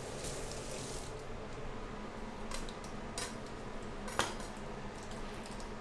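Light clatter of kitchenware at a kitchen sink: a short hiss near the start, then a few small knocks and clinks, the loudest about four seconds in.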